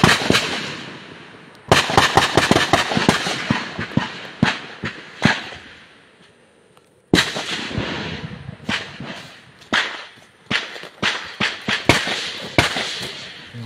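Exchange of small-arms gunfire from both sides: rapid bursts of shots, each with an echoing tail, easing off to a lull of about a second and a half past the middle, then resuming.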